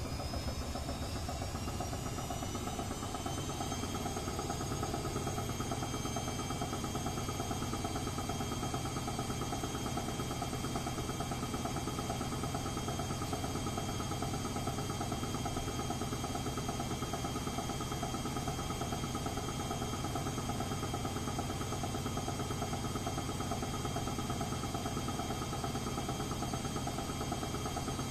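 Edesa front-loading washing machine spinning: a motor whine rises over the first few seconds and then holds steady at speed, over a constant rumble from the drum. The machine is running with a broken drum spider.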